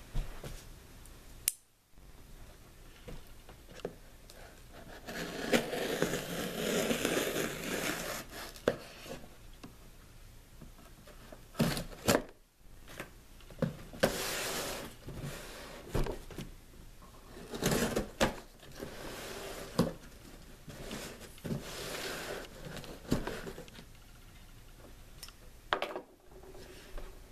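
A knife slicing the packing tape on a cardboard shipping box, heard as several separate stretches of scraping and ripping with sharp knocks against the cardboard. Near the end the box flaps are pulled open.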